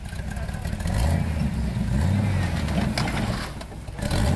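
Jeep's engine revving in surges as it climbs a steep dirt hill, the pitch rising and falling with the throttle and easing off briefly just before the end.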